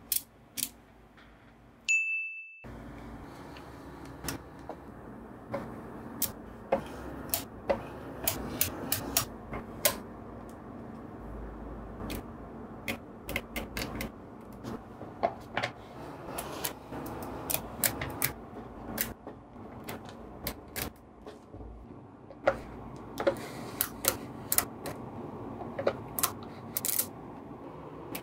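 Small magnetic balls clicking and snapping together as they are set in place, in uneven runs of sharp clicks. About two seconds in, a short high ding.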